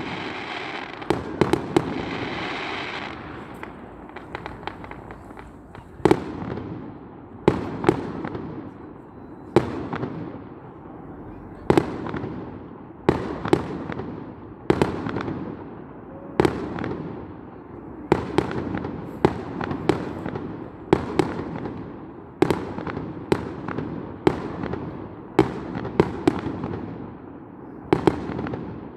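Fireworks display: shells bursting in a steady run, a sharp bang about every second or second and a half, each trailing off in a rolling echo. A dense crackling hiss fills the first few seconds.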